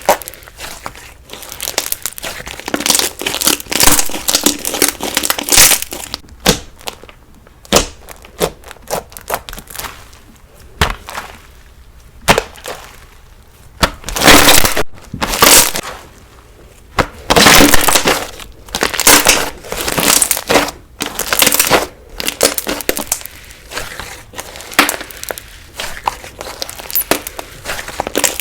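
Crunchy slime being squeezed and pressed by hand, crackling and popping in irregular bursts, some much louder than others.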